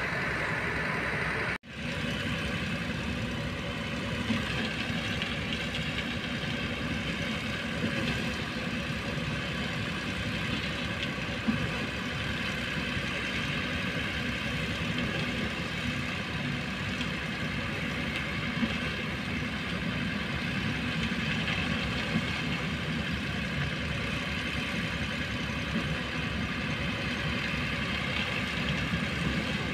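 Heavy diesel construction machinery running steadily, with a few light knocks here and there. The sound drops out for a moment about a second and a half in.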